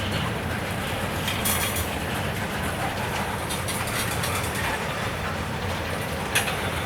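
CSX freight train's cars rolling past on the rails, a steady low rumble, with a sharp clank near the end.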